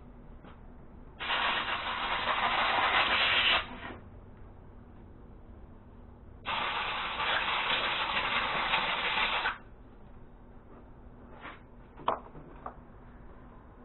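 Two long hissing spray blasts, a few seconds apart, into the carburetor of a Poulan P3314 chainsaw, flushing out the grime to clean it. A few light clicks and a sharper tap follow near the end as the part is handled.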